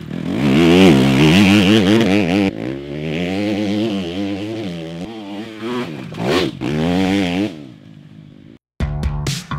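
Honda CRF250R's single-cylinder four-stroke engine revving up and down repeatedly as the throttle is blipped, then dying away. Music with a steady beat comes in near the end.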